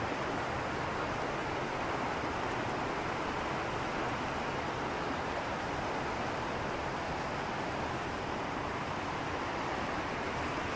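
Steady rushing of a shallow mountain river flowing over rocks, an even hiss with no breaks.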